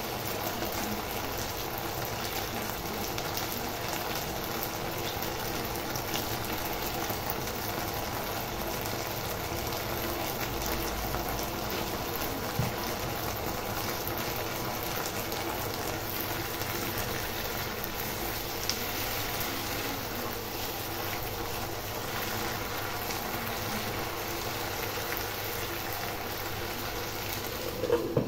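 Chopped okra frying in oil in a non-stick pan, a steady sizzle. Near the end a glass lid is set down on the pan with a brief clatter.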